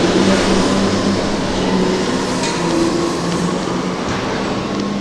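Heavy machinery at an iron ore hopper running with a loud, steady drone and a low hum, with a few faint clicks over it. It eases off slightly toward the end.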